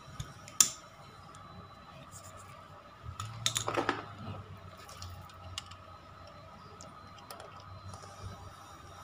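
Small clicks and taps of hands handling the top of a motorcycle carburettor, with a sharp click just under a second in and a brief rustling scrape about three and a half seconds in.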